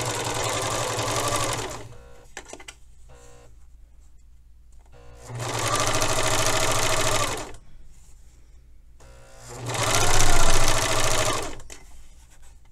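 Pfaff serger (overlocker) stitching a narrow rolled hem, running in three short bursts of about two seconds each with pauses between while the fold is readjusted. The third burst is the loudest and briefly speeds up.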